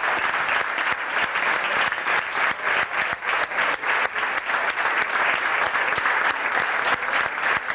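Audience applauding at the end of a dance performance.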